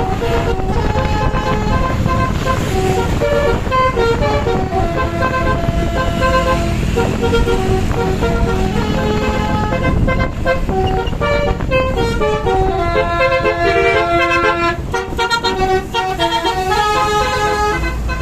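Indonesian bus 'telolet basuri' multi-note musical air horns playing a melody of quick stepping notes, over a steady low rumble of engine and road noise.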